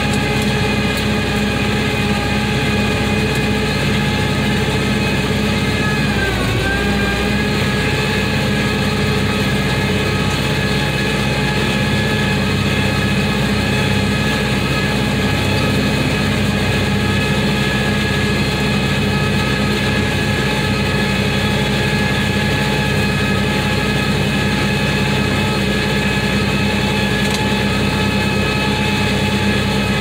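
Tractor engine running steadily under load while driving a round baler through its PTO shaft, with the baler's machinery turning. About six seconds in, the engine note dips briefly and recovers.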